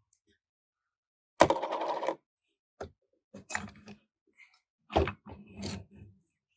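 Metal transmission parts clattering and knocking as they are handled and set down. A sharp clatter comes about a second and a half in, followed by several shorter knocks and clinks.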